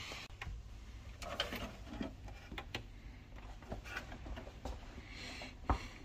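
Quiet handling noise: scattered light clicks and taps, with one sharper knock near the end.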